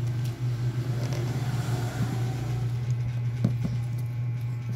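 A steady low mechanical hum, with a couple of soft taps about three and a half seconds in.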